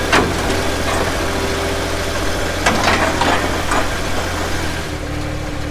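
Diesel engine of heavy equipment idling steadily, its tone dropping slightly about five seconds in. A sharp knock comes just after the start, and a few more about three seconds in.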